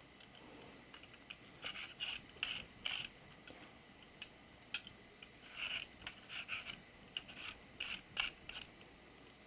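Faint, scattered clicks and light scrapes of kitchen handling over a steady, high chirring of crickets.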